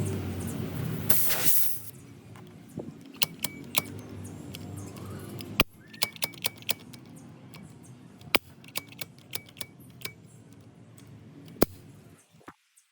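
A series of sharp metallic clicks and clinks from small tools and parts being handled, with a brief burst of hiss about a second in.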